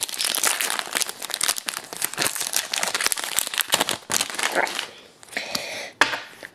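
Shiny plastic wrapper of a hockey trading-card pack crinkling as it is opened and the cards are slid out. Dense crackling for about four and a half seconds, then much quieter.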